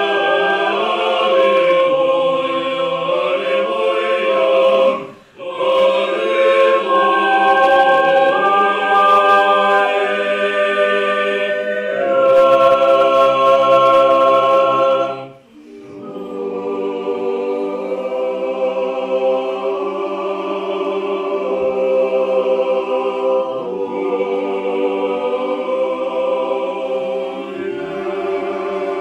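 Mixed choir of men's and women's voices singing Orthodox liturgical chant a cappella in sustained chords. It stops briefly twice between phrases and is quieter after the second stop.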